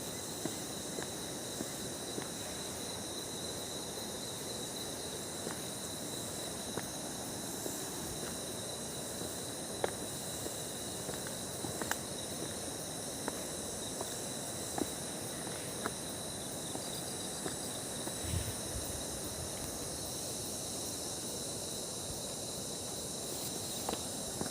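Steady high-pitched drone of insects chirring in tropical forest, over a soft even hiss, with scattered faint clicks.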